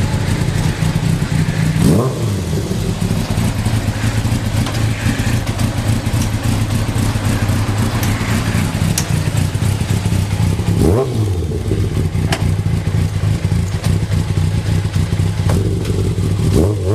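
Kawasaki ZZ-R1100's inline-four engine idling steadily, blipped briefly so that the revs rise and fall about two seconds in, again around eleven seconds, and once more at the very end.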